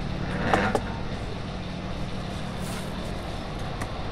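Steady background rumble and hum, with a few faint clicks about half a second in.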